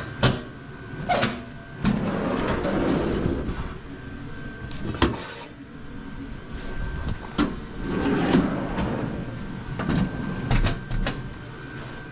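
Knocks, clunks and scraping as gear is handled inside an enclosed cargo trailer, ending with the trailer's side door being opened, over a faint steady high tone.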